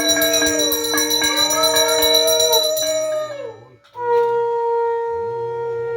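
Conch shell (shankha) blown in two long blasts. The first holds several overlapping pitches that waver and slide down as it dies away about three and a half seconds in. After a short break the second starts and holds one steady note.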